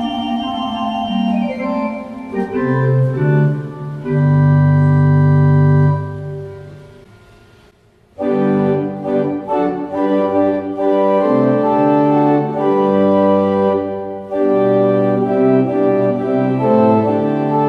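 Rieger pipe organ playing on manual I: a passage on the stopped flute 8' (Flet kryty) with Flautino 2' ends in a loud held chord about four to six seconds in, which dies away slowly. About eight seconds in, a new passage starts on Principal 8' and Octave 4' (Oktawa).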